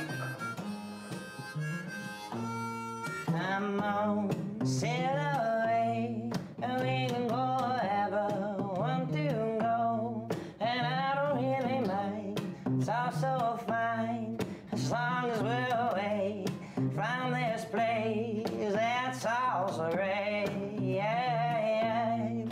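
Closing music: a harmonica plays a bending, wavering melody over guitar accompaniment, the lead coming in louder about three seconds in.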